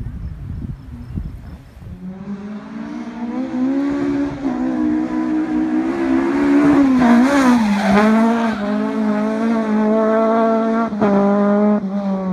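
A Honda Civic EP3 rallycross car's K20 four-cylinder engine is heard at high revs as the car approaches, growing louder from about two seconds in. Its pitch dips briefly a little past halfway, then holds high and steady.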